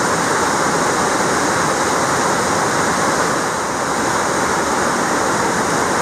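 Mountain stream rushing over rocks: a loud, steady wash of water noise.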